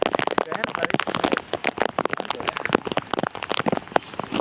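Heavy rain, with large drops striking close to the microphone in a dense, irregular run of sharp taps.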